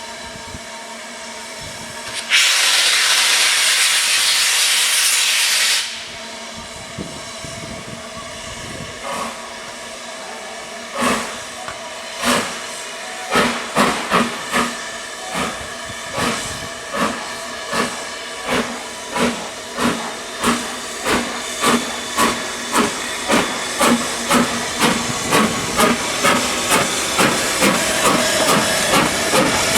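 Steam locomotive releasing a loud blast of hissing steam for about three seconds, then starting away, its exhaust chuffs beginning slowly and quickening steadily as it gathers speed.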